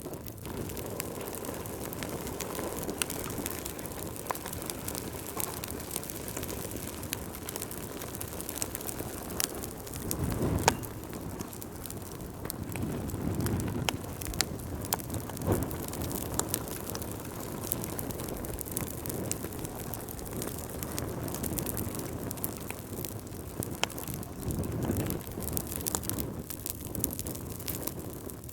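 Wood fire burning in a fireplace: a steady low rush of flames with frequent crackles and small pops, and one sharper pop about ten seconds in.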